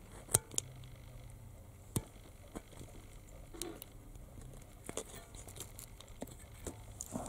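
Craft knife blade cutting and scraping into the black plastic sleeve around an LED filament lamp's power-supply board, giving a handful of small irregular clicks and scratches. The sharpest clicks come about a third of a second in and at about two seconds.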